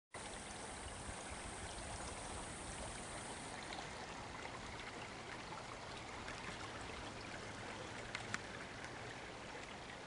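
Small creek flowing, water babbling steadily over stones, with two small ticks about eight seconds in.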